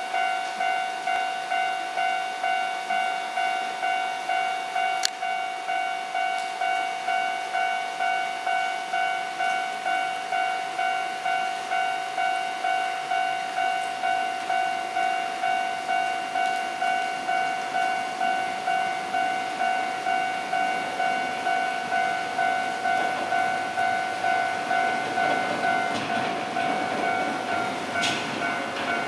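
Japanese railway level-crossing warning bell ringing steadily, a repeating electronic chime at about one and a half strokes a second. A low rumble builds near the end as a rail work vehicle approaches.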